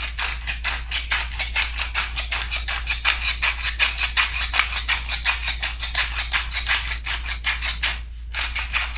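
Hand-twisted pepper mill grinding peppercorns: a fast, even run of rasping clicks that pauses briefly near the end, then starts again.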